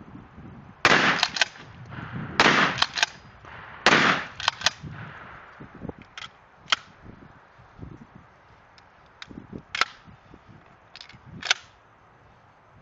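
Three shotgun blasts about a second and a half apart, each followed by quick sharp clicks, then scattered fainter clicks and knocks.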